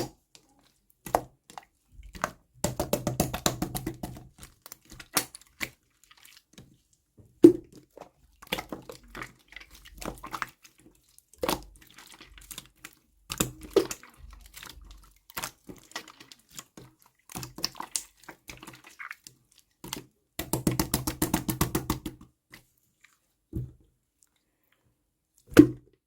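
Scattered knocks and clinks of a glass and utensils being handled, with two short stretches of fast rattling, one about two seconds in and one about twenty seconds in.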